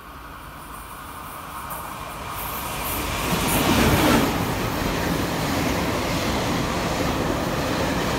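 TRA push-pull Tze-Chiang express train coming into the station along the platform. The rumble of its electric power car and wheels on the rails grows louder until the power car goes by about four seconds in, then carries on as a steady rumble of carriages rolling past.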